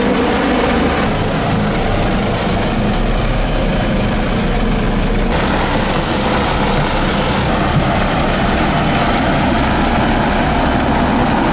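Helicopter flying overhead: steady, loud rotor and engine noise, unbroken throughout.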